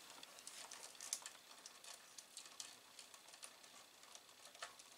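Faint, scattered small clicks and rustles of a wire bundle and its plastic grommet being worked loose from an Amiga 2000 power supply's sheet-metal case.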